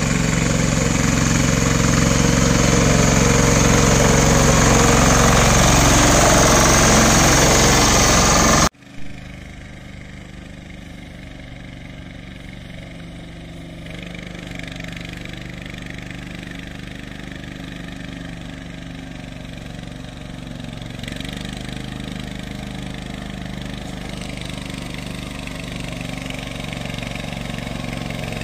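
Single-cylinder diesel engine of a small patpat farm vehicle running close by and loud. About a third of the way in the sound cuts off sharply. After that the same engine is heard far off, slowly growing louder as it draws nearer.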